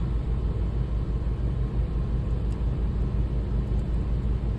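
Steady low mechanical hum and rumble that does not change, with a couple of faint light clicks.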